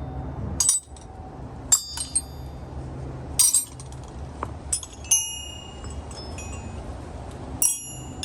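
Metal hand tools clinking and ringing as they are handled and dropped onto one another, several separate sharp clinks over a low steady hum.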